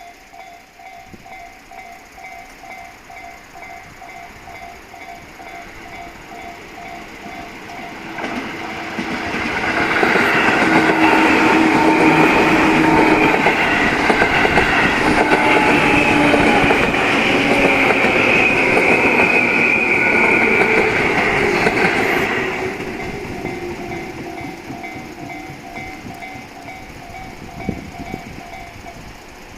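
Japanese level-crossing warning bell ringing in a steady repeating pattern. About eight seconds in, a 10-car Tobu 10030/10080 series electric train runs over the crossing, loud for about fourteen seconds, then fades. The bell is heard again as the train recedes and stops shortly before the end.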